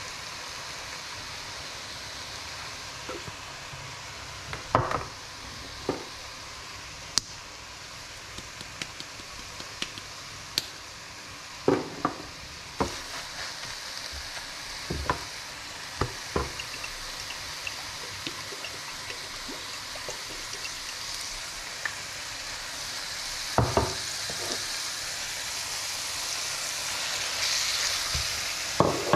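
Spinach sizzling in a hot nonstick frying pan while a spatula stirs it, knocking and scraping against the pan now and then. The sizzle grows louder near the end as raw chicken pieces go into the pan.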